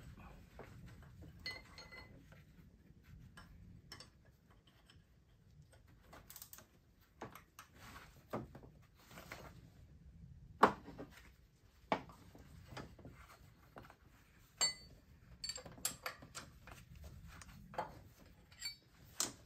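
Metal wrenches clinking and knocking against metal as the bottom AC compressor mounting bolt is broken loose and backed out: scattered sharp clicks and taps, with a few louder knocks in the second half.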